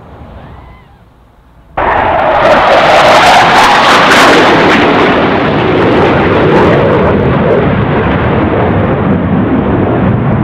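Low-flying RAF military jet passing: a very loud jet-engine rush that cuts in suddenly about two seconds in and holds, easing a little near the end.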